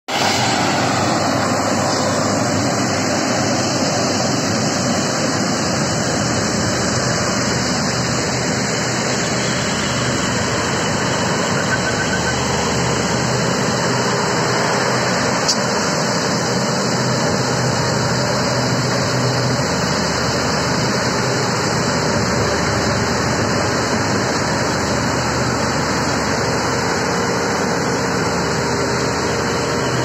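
Preet track-type combine harvester with a maize header running steadily while working through standing maize: a dense, even din of its diesel engine and threshing machinery. A single brief click about halfway through.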